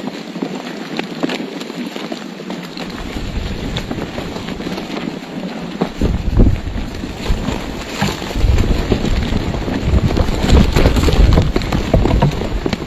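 A crowd of vultures scuffling over a deer carcass: flapping wings and jostling bodies right at the microphone, with many sharp rustles and knocks. Wing-beats buffet the microphone with a heavy rumble that grows much louder about six seconds in.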